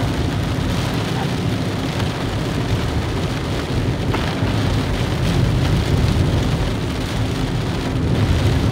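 Heavy rain falling on a moving car's roof and windshield, heard from inside the cabin, over the steady low rumble of the car driving on a wet road.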